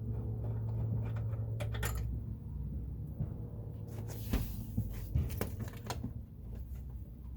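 Scattered metal clicks and knocks, with a longer scrape about four seconds in, as a car's rear door is worked off its hinges; a steady low hum runs underneath.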